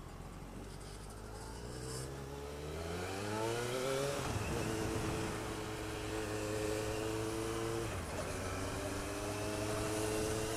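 Motorcycle engine pulling away: its pitch climbs for about two seconds, drops at a gear change, then holds steady, with another brief dip about eight seconds in.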